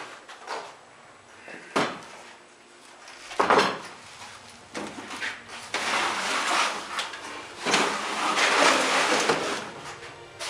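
Wooden pallet being handled: sharp wooden knocks about two and three and a half seconds in, then a few seconds of scraping and clattering as it is slid onto a plastic folding table.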